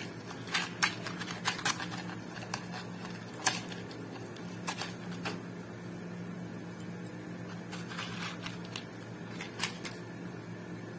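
Wooden toothpicks rattling and clicking in a cardboard tube container as it is handled: a scatter of sharp clicks, over a steady low hum.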